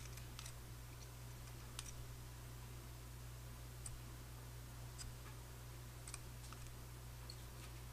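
Faint, irregular light clicks and ticks of a brush and instrument touching a stone dental model and retainer wire while acrylic is applied. A steady low hum runs underneath.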